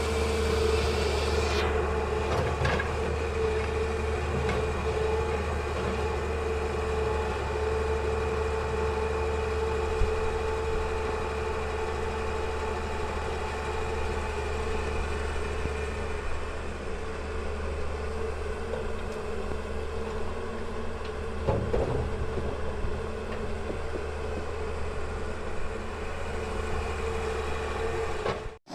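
Heavy diesel engine of a hydraulic excavator running steadily, a constant low drone with a steady hum above it and a few faint knocks.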